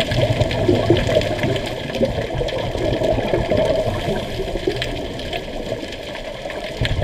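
Underwater bubbling and gurgling from scuba divers' exhaled air bubbles, heard underwater and irregular throughout.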